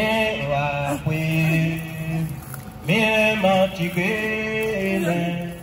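Voices singing a slow, chant-like lament about suffering and plantation labour, in long held phrases with a short break about two and a half seconds in.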